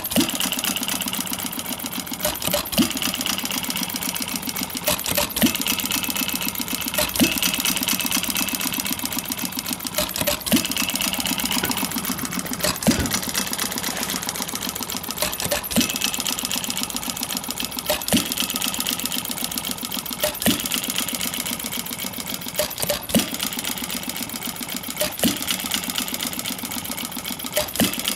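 Model air-cooled side-shaft vertical gas engine running, with a fast, even mechanical clatter and a sharper knock every two to three seconds. A part of its valve gear has been lowered and cushioned with an O-ring so it clacks less.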